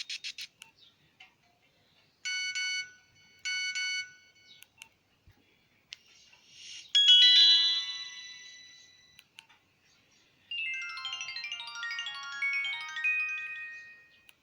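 Nokia 1661-2 mobile phone's loudspeaker playing a series of short alert tones. First come two identical chord-like beeps about a second apart, then a swelling sound that breaks into a bright chime and fades, then a quick run of melodic notes that falls and then climbs again.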